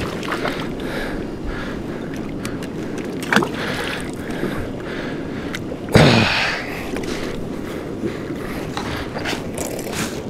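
Water sloshing and slapping against a fishing kayak's hull, with scattered knocks on the boat and one loud sudden slap about six seconds in that dies away over a second.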